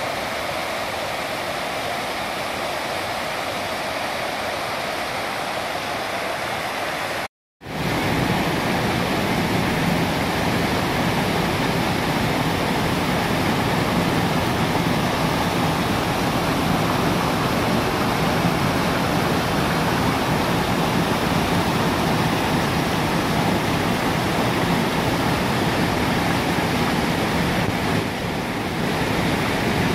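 Floodwater pouring over the steps of a concrete dam spillway and churning over the slabs and rocks below: a steady rush of falling water. It breaks off for an instant about seven seconds in, then comes back louder and fuller.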